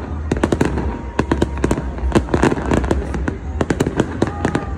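Aerial fireworks going off in a dense barrage: sharp bangs and crackles follow one another several times a second without a break.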